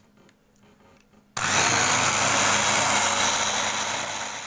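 Electric blender switched on about a second and a half in and running steadily, blending milk, lemon juice and Kiri cream cheese.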